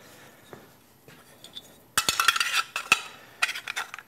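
Bent sheet-metal mounting plate clinking and rattling as it is handled. A quick cluster of metallic clinks comes about halfway through, followed by a few single clicks.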